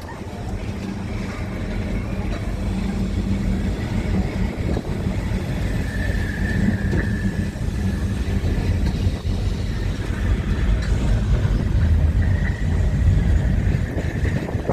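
Tram running along its rails, a low rumble that grows louder as it goes. A thin high whine or squeal comes in about halfway through for a couple of seconds and returns faintly near the end.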